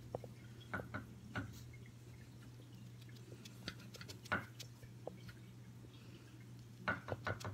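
Cotton swab dabbing paint dots onto thick watercolour paper: faint, irregular soft taps, with a quick run of several near the end, over a steady low hum.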